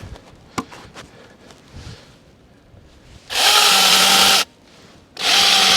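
Battery-powered firewood marking tool running against wood in two short bursts of about a second each, with a steady motor whine.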